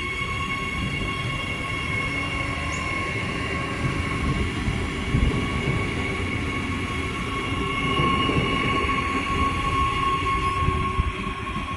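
4000 class electric train running past a station platform: a steady rumble of wheels on rail with a high, steady whine over it, growing a little louder in the last few seconds.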